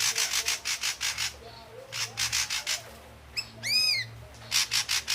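Ashy drongo calling: runs of rapid harsh, rasping notes, about eight a second, broken in the middle by a few clear whistled notes that rise and fall in an arch.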